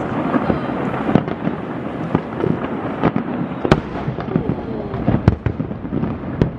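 Aerial fireworks shells bursting in quick succession, a steady crackle broken by many sharp bangs, the loudest a little after halfway through.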